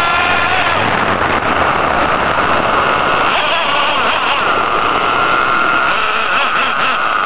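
Small nitro engine of an HPI Savage 25 RC monster truck, heard up close from a camera mounted on the truck, running at high revs as it drives. The pitch drops at the start, goes rough and uneven through the middle, then holds steady and high from about halfway, over a low rumble of the tyres on gravel.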